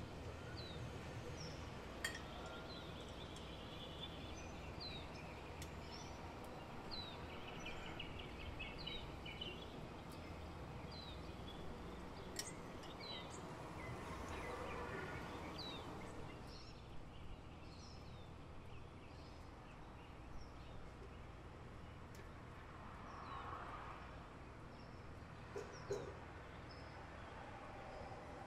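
Faint birds chirping, a run of short falling chirps about once a second through the first half, over a low steady hum. A metal spoon spreading marinara sauce over a baked cauliflower crust on a wire rack makes soft scraping and a few sharp clicks.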